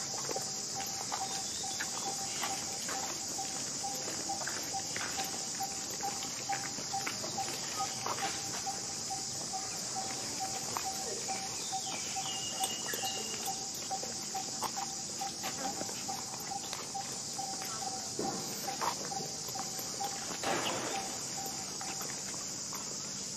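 Steady high-pitched insect chorus, with a rapid pulsing call lower down that stops near the end, and scattered light taps and rustles.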